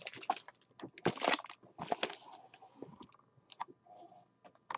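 A stack of trading cards and pack wrappers being handled and set down: a few short crinkling rustles, the loudest about a second in and two seconds in, then a few light clicks.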